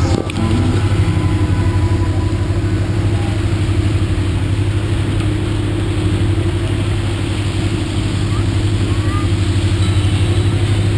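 Riverboat engine running steadily, a loud, even low hum that does not change.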